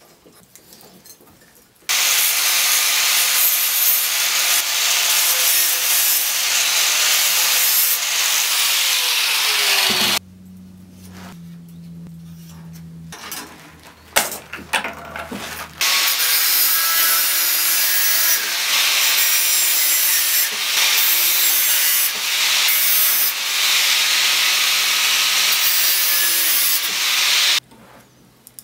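Steel being sawn by hand on a toothed steel blade clamped in a vise, a continuous rasping scrape. It runs from about two seconds in to about ten, pauses with a few knocks, and starts again at about sixteen seconds until shortly before the end.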